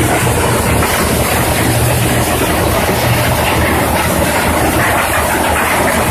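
Scrap metal crusher machine running: a loud, steady mechanical din with a low hum underneath.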